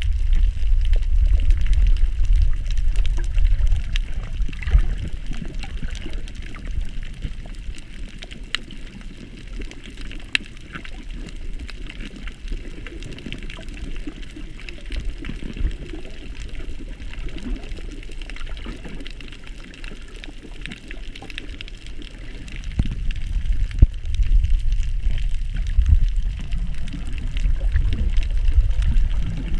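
Underwater sound picked up by a submerged camera: a low, muffled rumble of water moving against the housing that swells and eases, loudest at the start and again toward the end, with scattered faint clicks.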